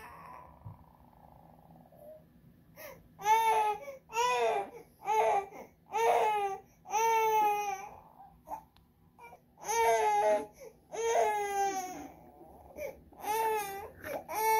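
A baby crying: a string of short, high wails with brief gaps between them, starting about three seconds in.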